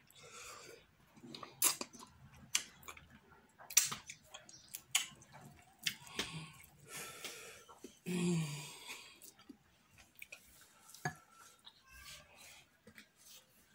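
Close-up eating sounds: chewing and wet lip-smacking of fufu and slimy okro and ogbono soup, with many sharp mouth clicks. There is a short low hum about eight seconds in.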